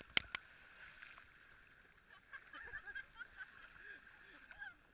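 Splashed water striking the camera, two sharp knocks just after the start, then faint sloshing of people running through shallow sea water, with distant voices.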